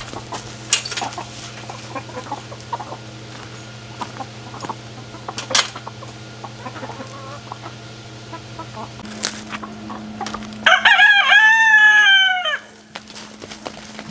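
Chickens clucking with a few sharp clicks, then a rooster crows once, loud, for about two seconds near the end.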